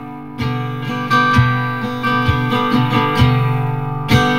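Acoustic guitar strumming chords: the instrumental opening of a song, before the vocals come in.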